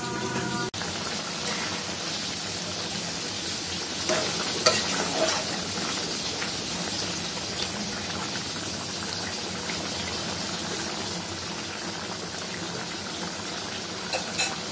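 Thick chicken curry sizzling and bubbling in a kadai, with a few short scrapes and knocks of a spatula stirring it about four to five seconds in.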